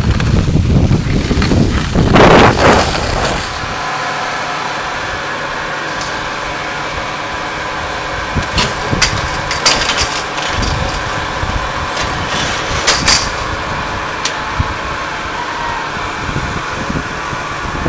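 Wind buffeting the microphone for the first few seconds. Then a steady mechanical hum from ski lift machinery, with several sharp metallic clanks.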